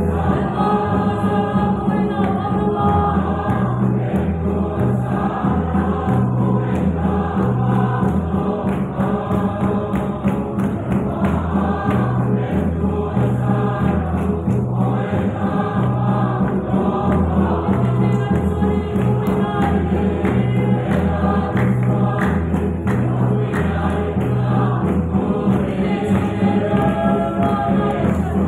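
Congregation singing a hymn together, many voices at once, over a steady low beat that alternates between two pitches about once a second.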